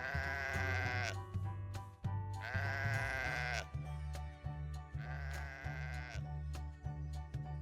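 Sheep bleating three times, each bleat about a second long and wavering, over light background music.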